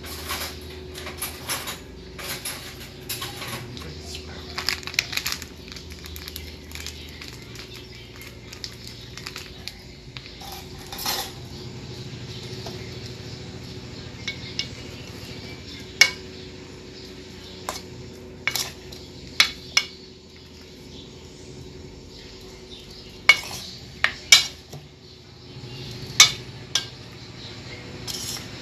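A metal spoon tossing and stirring floured chicken pieces in a bowl, with irregular sharp clinks and taps of the spoon against the bowl. The clinks are softer and denser at first, then sparser and louder in the second half.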